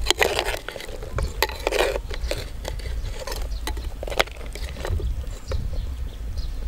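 A metal spoon stirring soup in a clay pot, giving irregular clinks and scrapes against the pot, over a steady low rumble.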